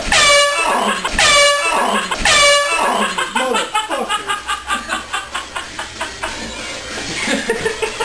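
Air horn blown in three short, loud blasts about a second apart.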